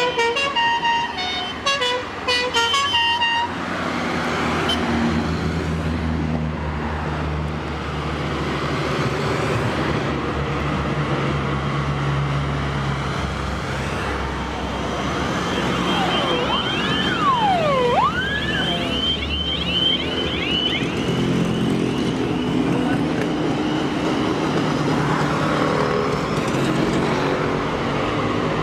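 A procession of old Eastern-bloc cars and motorcycles passing: several short horn toots in the first few seconds, then steady engine and road noise. A high tone glides up and down in the middle.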